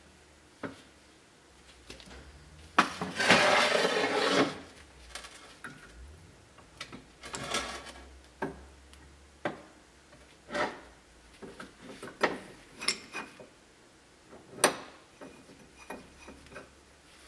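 Metal clinks and clatter from a ball joint press and its adapter cups being handled and fitted over a U-joint yoke clamped in a vise. A burst of rattling metal comes about three seconds in, followed by scattered single clinks and knocks, the sharpest a few seconds before the end.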